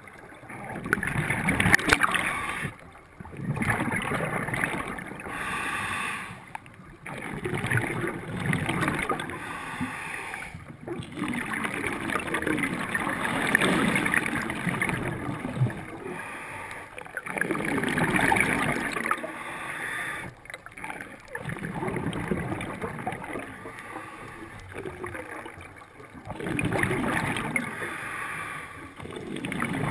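A scuba diver breathing through a regulator underwater: surges of bubbling, gurgling exhalation with short pauses between, about one breath every four to five seconds.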